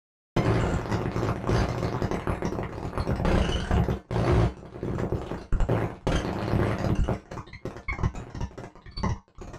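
Planetarium granular synthesizer preset playing a dense, choppy texture of rapid grains with a heavy low end. It starts abruptly after silence, drops out briefly twice, and breaks up into sparser stuttering fragments near the end.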